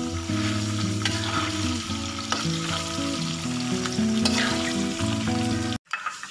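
Peanuts frying in hot oil in a pan, a steady sizzle, with a spatula knocking and scraping against the pan a few times as they are stirred. The sound cuts out briefly near the end.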